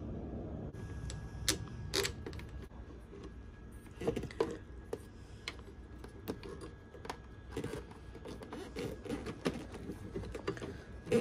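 Irregular clicks and light knocks of metal parts and tools being handled while refitting a scooter's luggage rack and handle, over a faint low hum.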